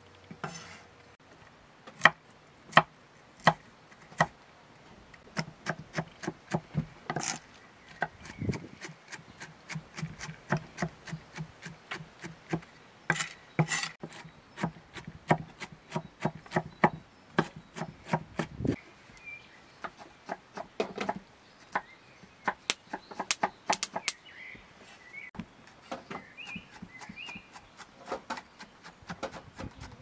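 Large knife chopping shelled walnuts on a thick wooden board: a run of sharp knocks of the blade on the wood. They start about two seconds in, a few spaced strokes at first, then quicker runs of several a second.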